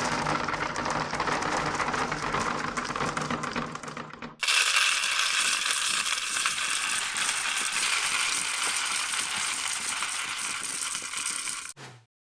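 Sound-design effects for a simulation: a dense, continuous clattering and crackling, cut abruptly about four and a half seconds in to a brighter, hissing rattle that stops near the end.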